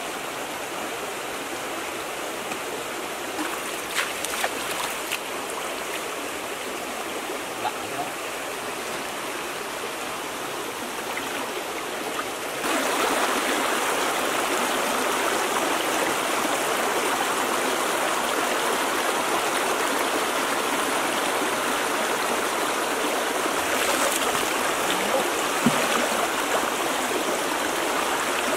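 A shallow, muddy stream running steadily over rocks, swollen after heavy rain; the rush of water gets louder in a sudden step about halfway in. A few light clicks sound in the first part.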